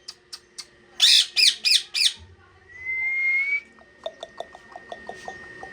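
Parrot calling: four loud calls in quick succession about a second in, then a rising whistle, then a quick run of short chirps.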